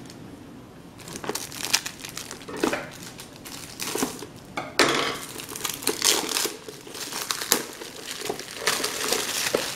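Clear plastic shrink wrap crinkling and tearing as it is cut open with scissors and peeled off a small box, in short irregular crackles from about a second in.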